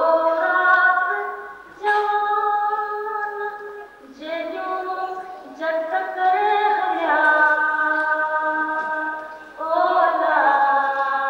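A woman singing a Sindhi folk song in long, held melodic phrases, with short breaths between them.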